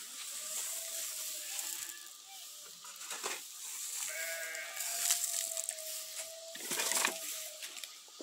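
Sheep bleating: two long, drawn-out calls, the second held for about three seconds, with a sharp knock between them and a rustling scrape near the end.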